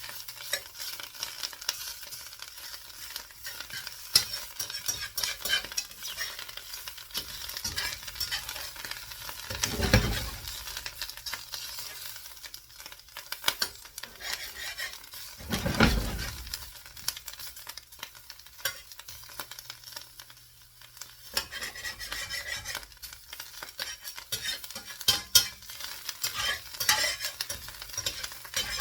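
An omelette of potato, mushroom, onion and ham sizzling and crackling in a frying pan, with frequent small pops. Two brief low rumbles come about ten and sixteen seconds in.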